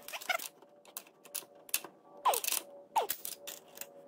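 Wrench clicking and clinking on the steel nuts and studs of a brake booster's mounting bracket as they are checked for tightness: irregular light metal clicks, with two short squeaks falling in pitch a little after two and three seconds in.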